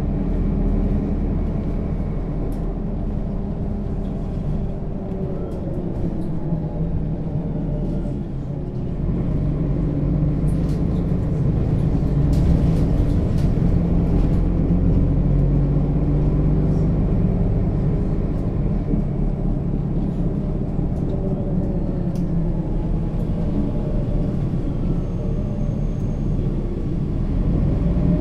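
Mercedes-Benz Citaro O 530 G articulated bus with a Voith automatic gearbox driving, its diesel engine running with a steady low rumble. The engine eases off about eight seconds in, then pulls louder again from about ten seconds.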